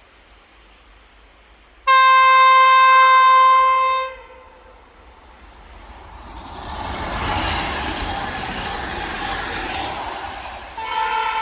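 Kockums Tyfon air horn on a Swedish electric multiple unit train: one loud, steady blast of about two seconds on a single note with many overtones, starting abruptly and cutting off. The train then passes with rising rolling noise of wheels on rails, and near the end a horn sounds again, two notes at once.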